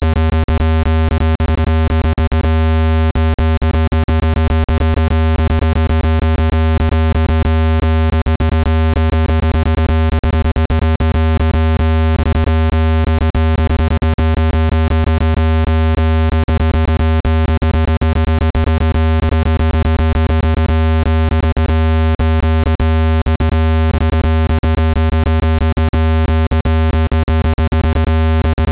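Loud, steady electronic low tone with many higher overtones stacked on it, broken by frequent short clicks. It is a speaker-cleaner sound, meant to shake dust out of a phone speaker grille.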